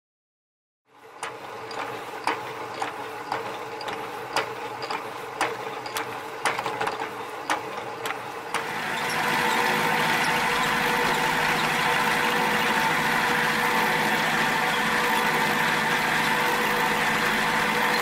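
Milling machine running, starting about a second in, with irregular sharp ticks about once or twice a second. At about nine seconds in, an end mill cuts into an aluminium block and the sound turns into a louder, steady cutting noise.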